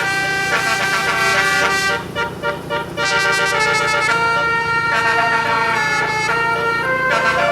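Multi-trumpet 'telolet' bus horn playing a tune in held notes that step from one pitch to the next, with a brief weaker stretch about two seconds in before the notes come back strongly.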